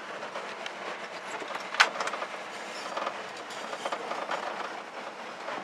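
1964 Ford F100 pickup rolling slowly under way, a steady noisy running sound with irregular rattles and clicks and one sharp clack about two seconds in.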